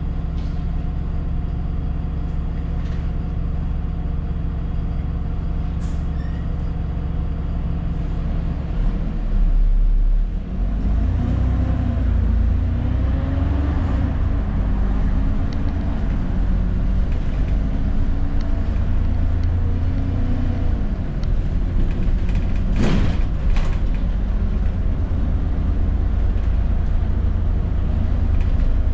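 ADL Enviro400 double-decker bus's diesel engine idling steadily, then about nine seconds in it revs up and the bus pulls away, the engine note rising and falling as it accelerates. A sharp hiss of air from the brakes cuts in about two-thirds of the way through.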